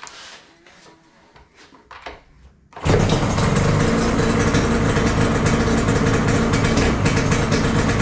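Yamaha RZ350's two-stroke parallel-twin engine starting from cold on the choke with the throttle cable unhooked. After a few light clicks it catches about three seconds in and settles into a steady idle, a sign that the freshly rebuilt carburettors are set up correctly.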